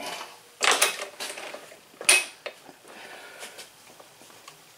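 A few sharp metallic clicks and short rattles from a faulty electric scooter horn being worked on. The horn will not honk and only clicks, a sign that its diaphragm adjustment is off.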